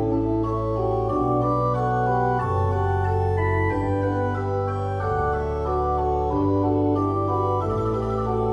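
Background music of slow, held organ-like chords over a sustained bass note, the chords changing about every second.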